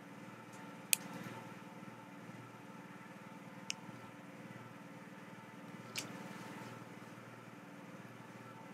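A steady low machine hum, with three sharp clicks about one, four and six seconds in.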